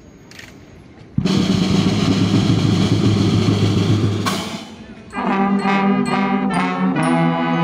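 Marching band: after a quiet second, the drums strike up a loud drum roll of about three seconds, which fades out. About five seconds in, the brass band (trumpets, trombones and other horns) starts a tune over the drums.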